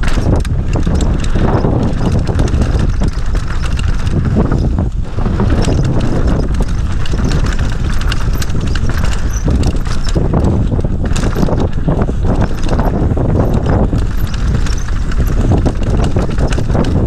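Downhill mountain bike ridden fast over a rough dirt trail: tyres rumbling over roots and stones, and the bike's frame, chain and parts rattling and knocking in a dense, uneven stream over a loud low rumble.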